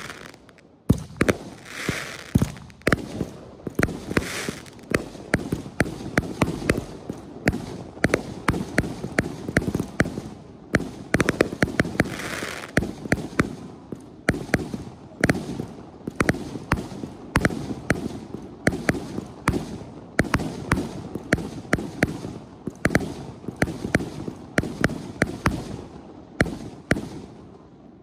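Consumer firework barrage going off in rapid succession: a continuous string of launches and aerial bangs with a few stretches of crackling hiss, stopping abruptly near the end.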